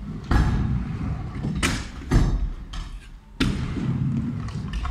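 Stunt scooter wheels rolling over a concrete skatepark floor with a steady low rumble, broken by four sharp clacks and thuds of the scooter and wheels hitting the surface, the loudest about two seconds in.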